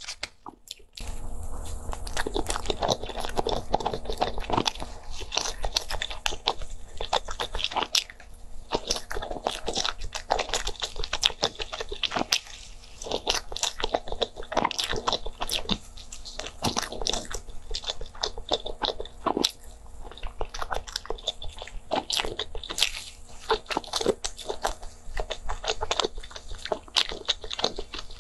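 Close-miked chewing and biting of soft tiger-skin cake: a steady stream of small mouth clicks and smacks. A low steady hum comes in about a second in.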